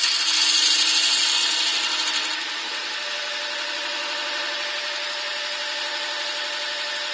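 Lathe tool pushed into a spinning yew handle, cutting a texture mark with a rough scraping that starts suddenly and is loudest for the first two and a half seconds. It then eases to a lighter steady rub over the lathe's running hum.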